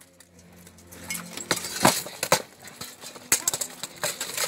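Steel armour and weapons of buhurt fighters clashing: a run of irregular, sharp metallic clanks and knocks as blows land on armour and shield.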